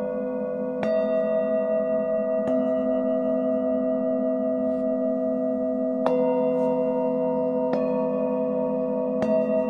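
Singing bowls struck five times, one after another, each strike ringing on and overlapping the last. The sustained tones waver slowly.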